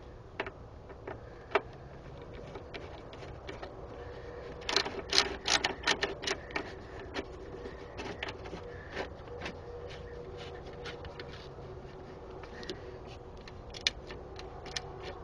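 Irregular clicks and small metallic taps of hand tools working a ground-wire fitting, with a quick run of them about five seconds in, over a faint steady hum.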